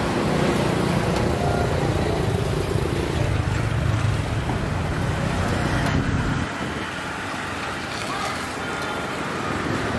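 Road traffic with a low vehicle engine rumble that drops away about six and a half seconds in.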